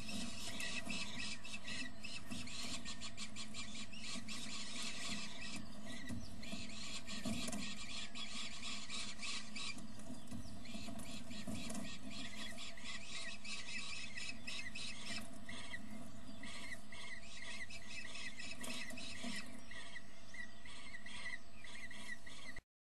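Downy bird-of-prey chicks in a nest box giving rapid, continuous high squealing begging calls while an adult feeds them. The sound cuts off abruptly near the end.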